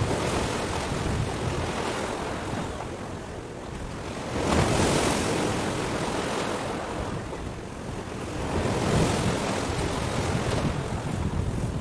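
Sea waves washing in, with wind rumbling on the microphone; the wash swells louder about four seconds in and again about nine seconds in.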